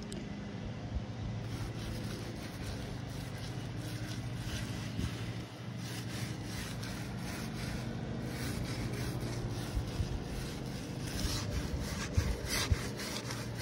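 Paintbrush strokes rubbing paint onto weathered, peeling wooden siding, a steady run of short brushing rasps, over a steady low hum.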